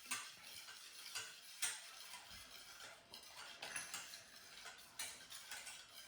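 Faint, irregular clicks and taps of a utensil knocking against a mixing bowl while wet banana bread batter is stirred, about one or two a second.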